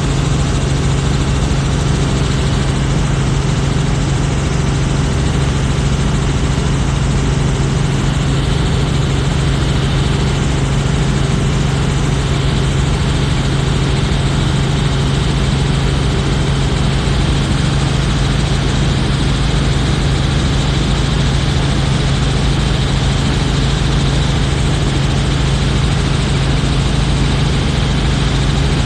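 Helicopter in flight heard from inside the cabin: the engine and rotor make a loud, unchanging drone with a strong low hum underneath.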